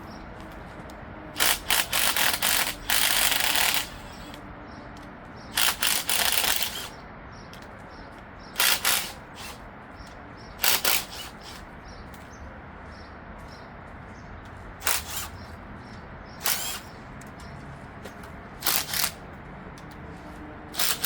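Bursts of ratchet wrench clicking as bolts are worked loose on an engine, eight or so spells with short pauses between them, the longest near the start.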